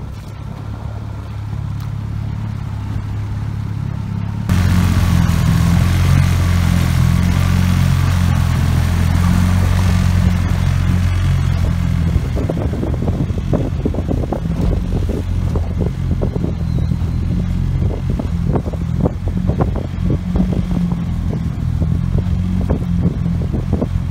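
Small boat's outboard motor running steadily under way. It gets suddenly louder about four and a half seconds in, and irregular thumps come through in the second half.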